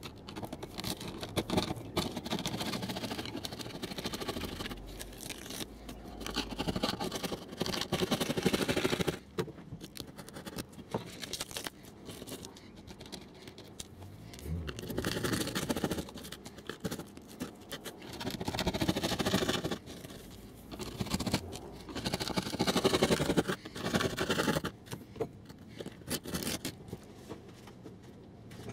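Hand tool scraping glued ballast and cork underlay off a model railway baseboard as old track is ripped out. It comes as a long bout of scratchy scraping over about the first nine seconds, then several shorter bouts of a second or two with pauses between.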